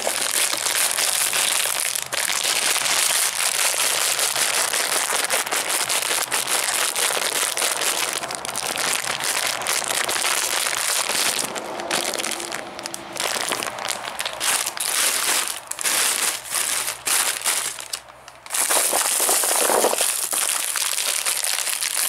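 Plastic candy wrappers and bags crinkling and rustling as a hand rummages through a box of wrapped sweets, almost without a break, with one short lull about three-quarters of the way through.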